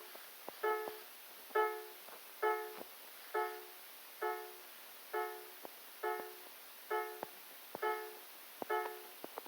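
Home-built electronic railway crossing alarm sounding its repeating bell-like tone, a little more than once a second, with faint clicks between the tones.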